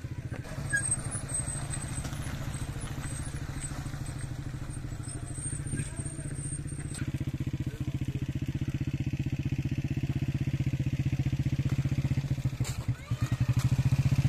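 Small motorcycle engine running steadily close by, with a fast, even putter that grows louder near the end as the bike comes up alongside.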